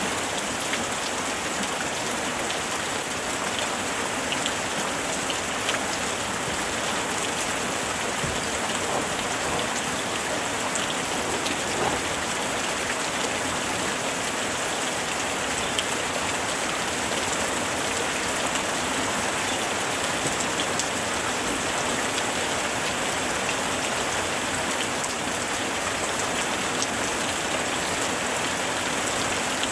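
Steady, heavy rain falling, with individual drops ticking on a surface. There is no thunder.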